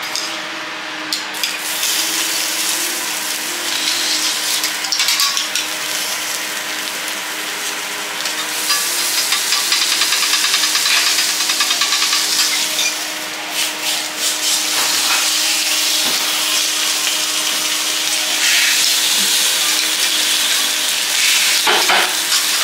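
King prawns and butter sizzling on a hot steel teppanyaki griddle, with the scrape and clink of a metal spatula and fork moving them across the plate.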